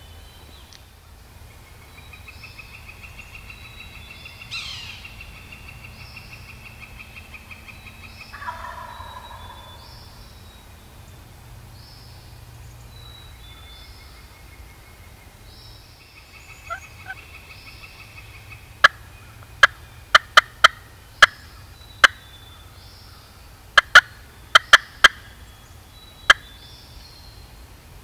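Turkey clucks and cuts: loud, sharp single notes that come in quick clusters from about two-thirds of the way through. Songbirds trill softly in the background earlier on.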